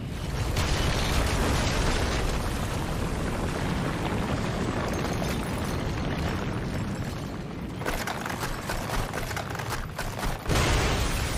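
Anime battle sound effects: a loud, continuous rumble of explosions and crashing that starts abruptly, with sharper impacts about eight seconds in and a louder blast near the end.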